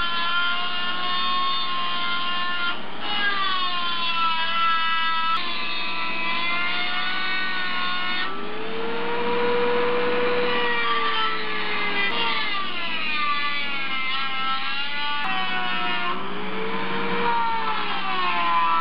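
Handheld high-speed rotary tool with a small grinding bit, grinding out the exhaust port of a Mazda 13B rotary engine's aluminium rotor housing: a high motor whine whose pitch sags and recovers as the bit bites. The sound changes abruptly several times as the shots jump.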